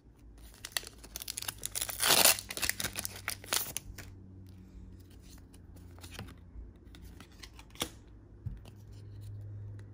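Foil wrapper of a Pokémon trading-card booster pack being torn open and crinkled, the crackle loudest about two seconds in. After that come scattered light clicks of the cards being handled.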